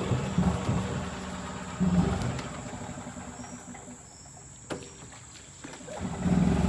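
The 13-horsepower gas engine of a 2005 EZ-GO MPT1200G utility golf cart runs with short surges of throttle, then drops to a low, quieter run. One sharp click comes about two-thirds of the way through, and the engine picks up again near the end.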